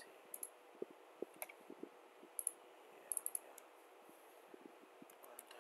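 Faint, scattered clicks of a computer mouse and keyboard, with a quick run of clicks about three seconds in, over a faint steady hum.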